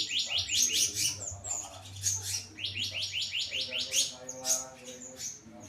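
A slendang biru songbird singing: fast trills of short, falling chirp notes, about six or seven a second, in two runs with a brief break between them, then scattered single notes.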